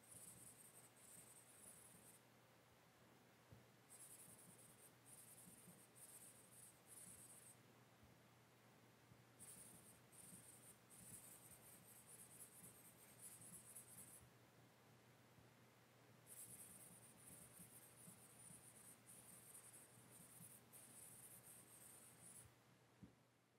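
Faint, hissy scratching of strokes drawn across a surface, in four stretches of a few seconds each, over a steady low hum.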